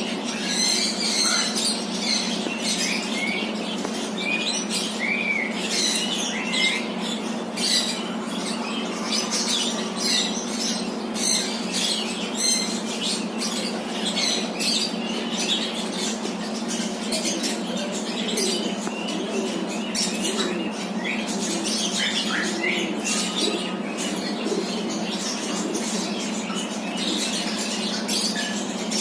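Many small birds chirping and squeaking continuously in quick, overlapping calls, over a steady low hum.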